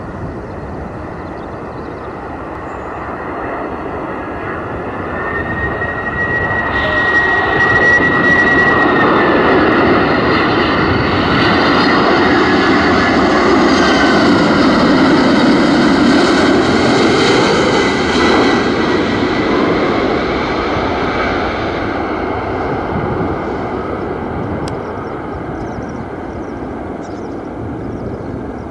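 Boeing 767-300ER twin-jet airliner on final approach passing low overhead. Its jet engine noise swells over several seconds, with a high whine on top, and is loudest as it passes. It then fades as the aircraft flies on down to the runway.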